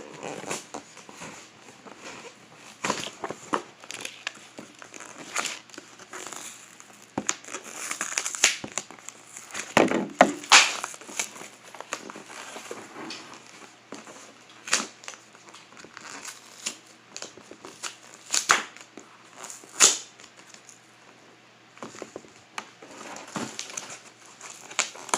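A shipping box being broken open by hand: irregular crunching, crackling and tearing of the packaging, with several sharp cracks, the loudest about ten seconds in and two more near eighteen and twenty seconds.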